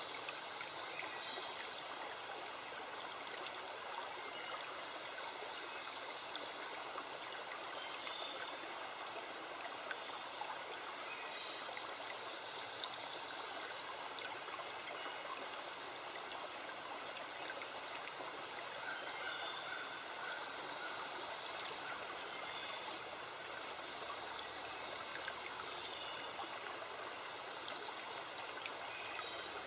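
Stream running steadily in a forest, an even rush of flowing water. Faint steady high tones sit above it, and a brief higher shimmer rises every several seconds.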